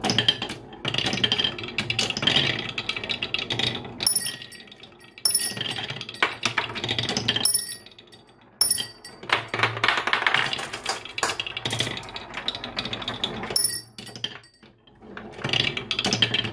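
Glass marbles rolling and rattling along wooden marble-run tracks, clicking over the raised slats and the wavy carved chute, in several runs with short pauses between them.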